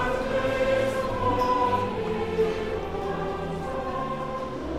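Background choral music: a choir singing slow, long-held notes.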